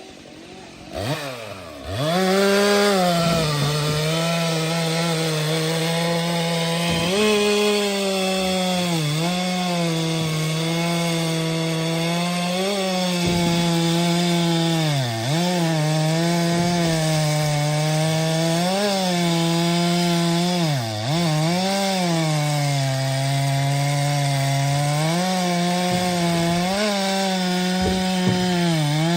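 Stihl MS 462 C-M two-stroke chainsaw revving up about a second in, then running at high revs cutting firewood, its pitch dipping briefly every few seconds.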